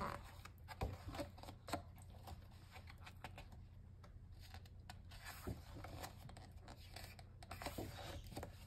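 Pages of a picture book being turned by hand: faint paper rustles and several light taps, most of them in the first couple of seconds.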